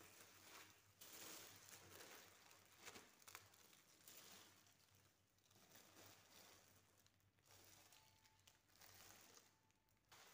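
Faint, irregular crinkling and rustling of the plastic film wrapping a stack of sky lantern packets as they are handled and laid down, in bursts with short pauses.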